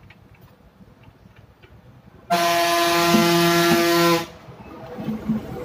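A vehicle horn sounds once, a steady blare of about two seconds that starts a little over two seconds in and cuts off sharply.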